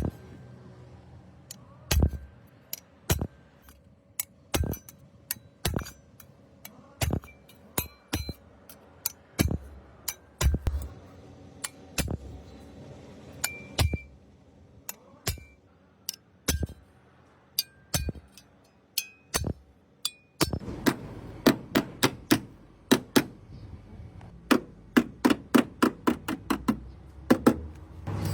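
Hammer striking a car body panel: single strikes about a second apart, some with a short metallic ring, then from about two-thirds through a faster run of two to three strikes a second.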